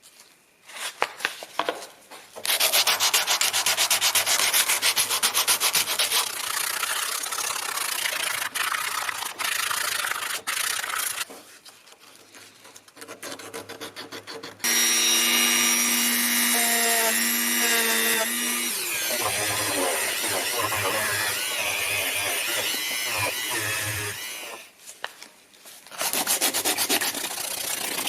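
Rust and dirt being scrubbed off an old hand drill by hand with sandpaper or a brush, in rapid back-and-forth rubbing strokes. A steady pitched tone joins for a few seconds midway.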